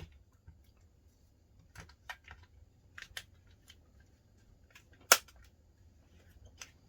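Scattered sharp plastic clicks and taps from an Xbox 360 controller and its battery pack being handled and snapped shut, with one click about five seconds in much louder than the rest.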